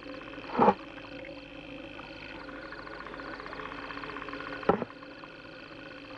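Eerie film sound design: a steady low drone layered with faint, rapid insect-like ticking, broken by two short loud swells, one about half a second in and one near five seconds in.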